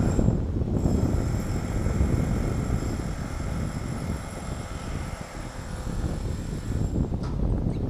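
Jackhammer hammering steadily: a low, rapid pounding rumble.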